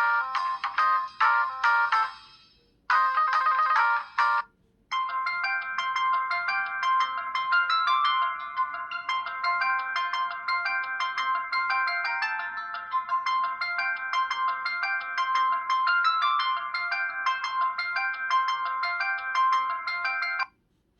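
Built-in ringtones of an LG Extravert 2 (VN280) flip-keyboard cell phone, played one after another. One melody fades out about two seconds in and a brief snatch of a tune follows. About five seconds in a different melody starts and plays for some fifteen seconds, then stops just before the end.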